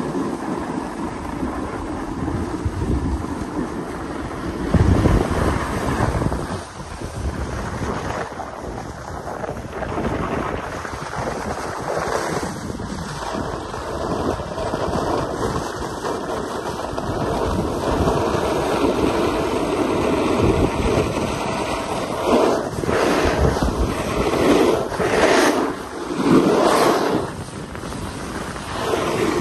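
Wind rushing over the microphone while riding downhill, mixed with board edges scraping and hissing across packed, groomed snow, with louder scraping surges near the end as the riders turn.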